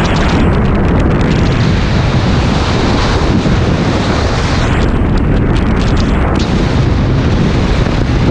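Heavy wind buffeting the microphone of a camera riding on a moving vehicle: a loud, steady rumble with road noise underneath.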